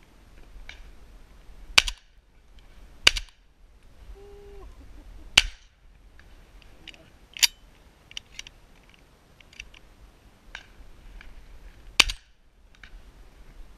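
Shotgun shots during a dove hunt: five loud, sharp reports spaced irregularly, with fainter distant shots between them. The last one, about twelve seconds in, is the hunter's own shotgun firing, and a spent shell hull is ejected.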